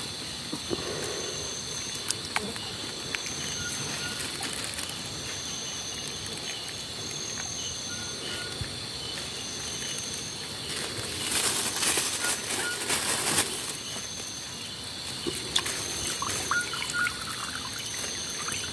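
Shallow stream water trickling under a steady high-pitched chorus of night insects, with a short call repeating about every two seconds. From about eleven seconds in, a few seconds of splashing and rustling as a hand net is worked through the water among the stones.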